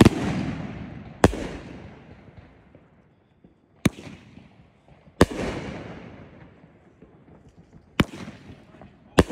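Fireworks going off: about six sharp bangs one to three seconds apart, several followed by a long fading tail.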